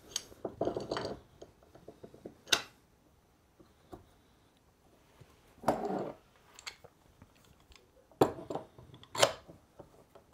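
Metal clamps and a wooden stop block being handled and fitted to a table saw's outfeed table: scattered clicks, scrapes and clacks of metal on wood. The two loudest knocks come near the end as the clamps are seated.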